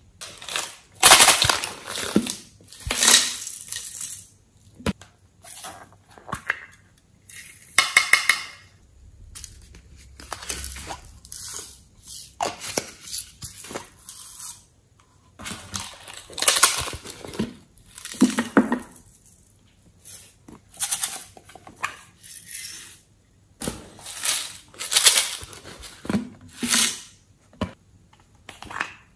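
Small plastic containers of glitter being opened and shaken out, and clay pieces set into a tray of slime: irregular bursts of clicking, rattling and scattering sounds with short quiet gaps between.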